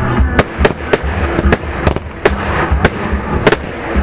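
Fireworks display: aerial shells bursting in a rapid, irregular series of sharp bangs, about ten in four seconds, over a rumbling background.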